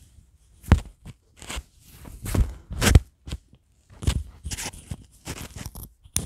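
Silk shirt fabric rustling and rubbing against a clip-on microphone as the shirt is pulled on and settled, heard as a string of uneven crackling scrapes, the sharpest about a second and three seconds in.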